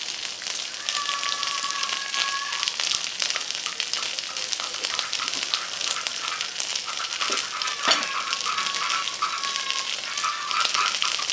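Marinated beef, potato wedges and green stems sizzling on a hot nonstick tabletop grill pan, a steady crackling fry. There is one sharp click about eight seconds in, and a thin high tone comes and goes behind the sizzle.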